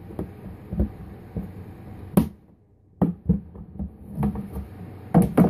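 Handling noise: a series of knocks and clicks, the loudest about two seconds in and a quick pair near the end, over a steady low hum.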